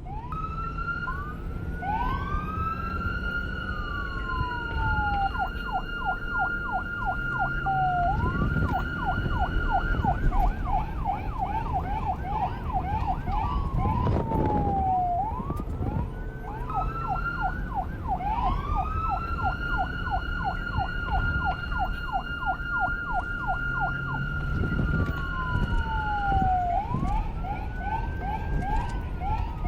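Police car siren cycling through its tones: a rising wail that holds a high steady pitch, then a rapid yelp of quick up-and-down sweeps, then a falling glide. The cycle repeats about every 15 seconds over low background noise.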